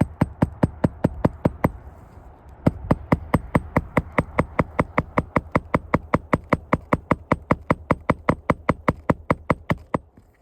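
Hammer driving roofing nails by hand into a replacement shingle: rapid, even blows at about five a second, with a short break about two seconds in.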